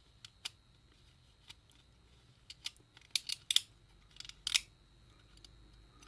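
Sharp, irregular clicks and taps from a small plastic Tri-ang model helicopter being handled, bunched in two quick clusters a little after the middle.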